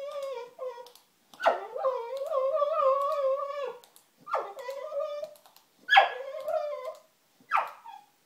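Cockermops dog (cocker spaniel–pug cross) whining and howling in a series of drawn-out calls that waver in pitch, the longest about two seconds, with a short yelp near the end.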